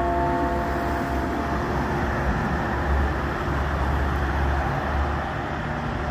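Cars and pickup trucks passing on a town street, a steady rumble of engines and tyres. Over the first second and a half, the ringing of a tower clock bell fades away.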